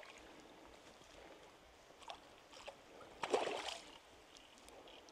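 Faint trickling creek water with a few soft clicks, and one brief splash of water a little over three seconds in.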